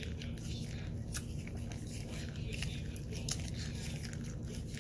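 Sipping liquid from a torn-open single-serve pouch: small irregular mouth clicks and sucks, with faint handling of the pouch, over a steady low hum.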